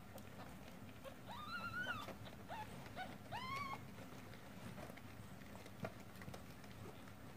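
Newborn kittens mewing while they jostle to nurse: a long arching mew about a second in, two short mews, then another longer mew around the middle. A small tap comes a little before the end.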